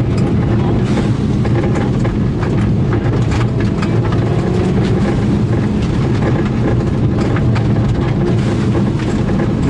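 Turbocharged rally car's engine running hard at fairly steady revs on a gravel stage, with frequent sharp ticks and knocks of stones and gravel striking the underside.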